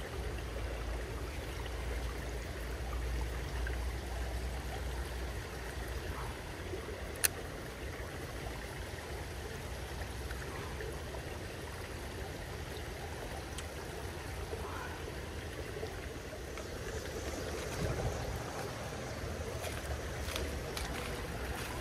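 Shallow creek water running over rocks, a steady rushing hiss. A low rumble sits under it for the first few seconds, and a single sharp click comes about seven seconds in.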